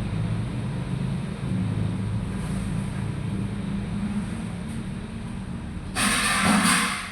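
A vehicle engine running with a steady low rumble, and a loud hissing rush about six seconds in that lasts about a second.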